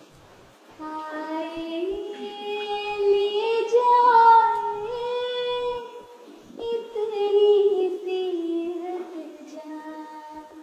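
A young girl singing without accompaniment in long, held, ornamented phrases, pausing briefly about six seconds in before a second phrase.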